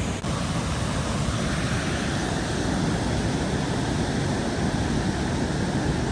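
Waterfall's rushing water: a steady, dense noise with a heavy low rumble.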